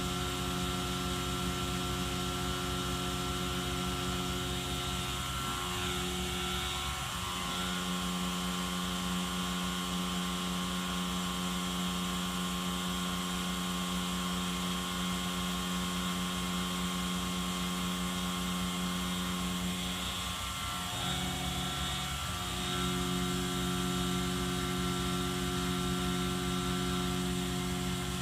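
Tormach PCNC 770 CNC milling machine running, a steady whirring drone made of several steady tones. Twice, about six and about twenty-one seconds in, the tones sweep and shift to a new set.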